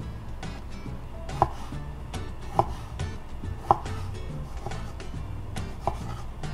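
Chef's knife chopping a ripe Bartlett pear on a wooden cutting board: a steady run of knocks, about two a second, with a few sharper ones in the first half. Background music plays underneath.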